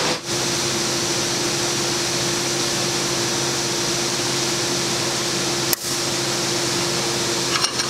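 Steady workshop room tone: an even hiss with a constant low hum, like a ventilation fan or air handler running, briefly cutting out near the start and about six seconds in. No crack or snap of the lever is heard.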